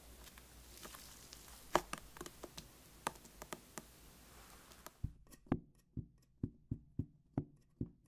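A few faint ticks, then from about five seconds in a metal cake pan full of chocolate sponge batter is knocked against the table in a steady series of soft knocks, about three a second. The pan is being tapped to settle the batter and knock out air bubbles before baking.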